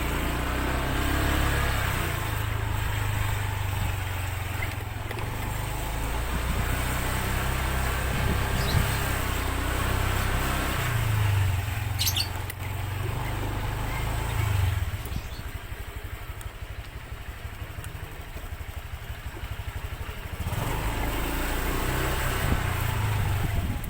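A motor vehicle engine running steadily with a low rumble, its pitch rising and falling at times. It eases off for a few seconds past the middle, then picks up again.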